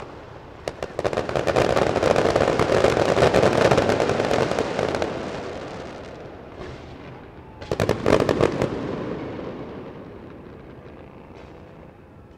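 Aerial fireworks display going off: a dense volley of many rapid bangs and pops starts about a second in, runs for a few seconds and dies away. A second, shorter volley of bangs comes past the middle and fades out.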